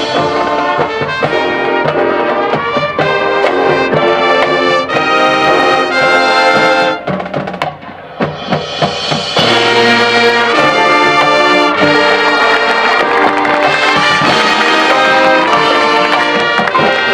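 Marching band playing, brass section on sustained chords and runs over percussion. The music dips briefly a little before halfway, then the brass comes back in with fuller held chords.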